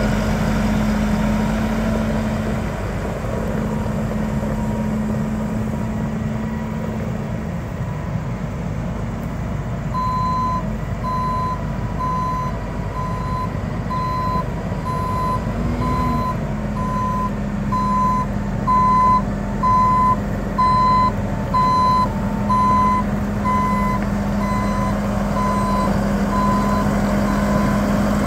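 2012 Case IH Magnum 315 tractor's diesel engine running steadily. About ten seconds in, a reverse alarm starts beeping about once a second and keeps going until near the end, the sign that the tractor is in reverse.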